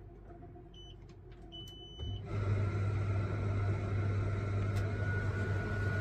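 Russell Hobbs tumble dryer: the control panel beeps twice, the second beep longer, then about two seconds in the drum motor starts with a steady hum. It keeps running while the door is open, because the broken door latch is stuck in the door switch so the safety cut-out never trips.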